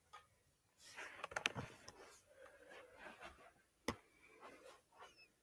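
Faint clicking and scraping as the parts of a Duncan parking meter's mechanism are handled, with one sharp click about four seconds in.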